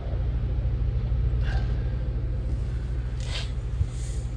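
Steady low mechanical hum running throughout, with faint brief rustles of handling about one and a half and three seconds in.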